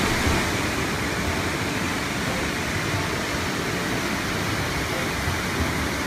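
Waterfall pouring into its rock plunge pool: a steady, even rush of falling water.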